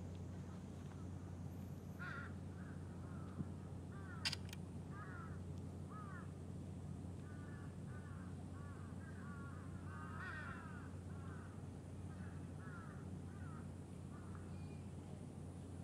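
Birds calling in a run of short, sliding calls, thickest through the middle, over a steady low hum, with one sharp click about four seconds in.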